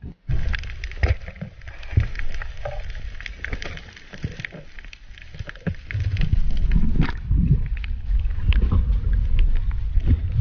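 Underwater ambience picked up by a diver's camera: low water rumble with scattered sharp crackling clicks. The rumble grows louder about six seconds in.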